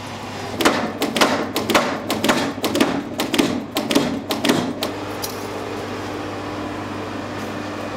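Mechanical power hammer striking a red-hot steel crossguard bar in quick, irregular blows, roughly three or four a second, for about four seconds, then stopping. A steady hum carries on after the blows stop.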